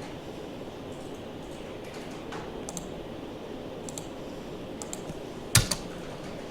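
Scattered clicks of a computer keyboard and mouse over a steady background hum, with one sharper, louder click about five and a half seconds in.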